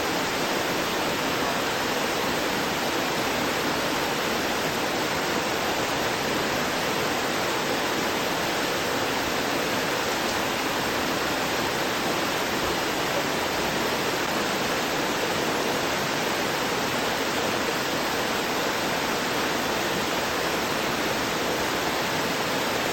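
Waterfall pouring down a rocky cliff: a steady, even rush of falling water with no change in level.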